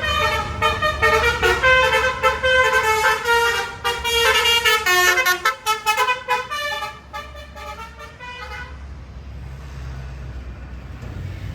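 Bus 'telolet' multi-tone air horn playing a rapid tune of changing notes, several sounding at once. It stops about nine seconds in, leaving the low rumble of the bus engine.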